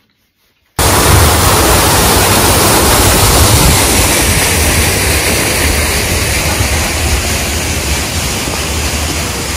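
Loud, steady rushing noise with a heavy low rumble, cutting in abruptly about a second in and easing slightly toward the end.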